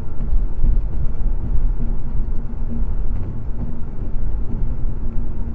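Steady low rumble of road and engine noise from a car cruising at highway speed, picked up by a dashboard camera inside the cabin.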